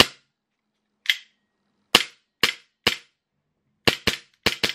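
SIG Sauer ProForce P320 M18 gas blowback airsoft pistol dry-fired without BBs: about nine sharp shots, each the gas charge cycling the slide. They come at an irregular pace, the first few spaced out and the last four in a quick burst near the end.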